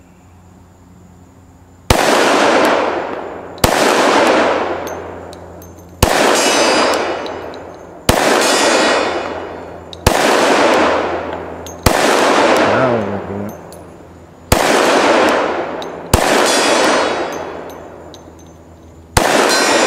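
Glock 20 10mm pistol firing nine shots, spaced about two seconds apart, each shot followed by a long echo that dies away over a second or more.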